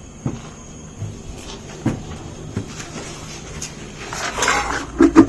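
The flat road wheel being pulled off the car's hub: a few scattered knocks and clunks, then a scraping noise a little after four seconds and a louder clunk near the end.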